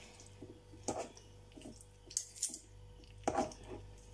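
Two metal forks pulling apart chunks of canned stewed pork in a bowl: wet squelching of the meat with a few short clicks and scrapes of the forks, about three times.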